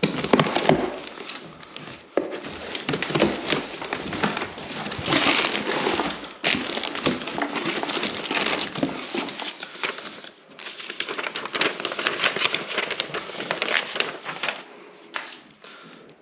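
Cardboard box being slit open with a knife and its flaps pulled back: irregular scraping, tearing and rustling of cardboard, with many sharp clicks and crackles. Plastic air-pillow packing crinkles as it is handled.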